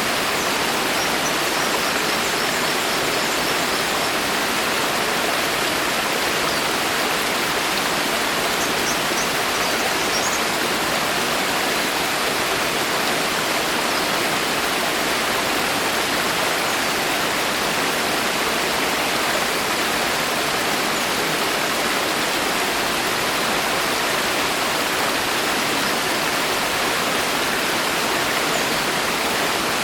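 Rain falling steadily in a forest: a dense, even hiss of drops that never changes in level.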